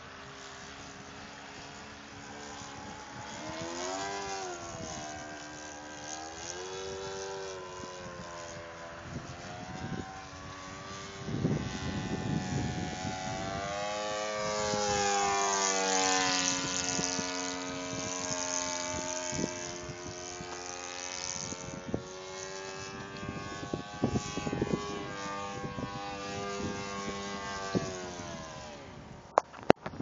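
Saito 82 four-stroke glow engine of a Seagull Super Decathlon radio-control model plane in flight, spinning a 13x6 propeller. Its steady drone rises and falls in pitch several times as the throttle changes and the plane passes overhead, and it is loudest about halfway through.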